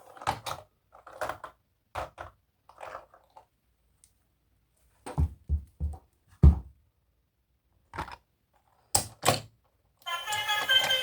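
Toy vehicles being handled and set down: irregular knocks and thunks with short gaps between them, the loudest about six and a half seconds in. Music starts near the end.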